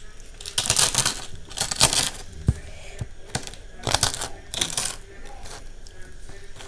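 Fried papad (a crisp lentil wafer) crackling as it is crushed by hand into khichuri on a steel plate, in several short crunchy bursts, with a few dull taps of fingers against the plate.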